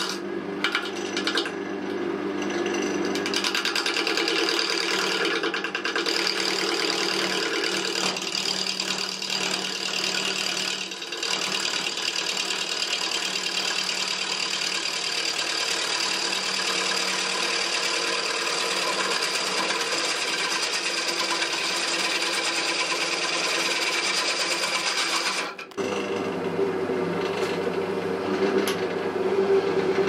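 A wood lathe spinning an oak workpiece, with the steady hiss and rasp of a hand-held turning tool cutting the wood over the motor's hum. A few seconds before the end the sound changes abruptly to a deeper, stronger hum from the lathe turning a wide oak bowl blank.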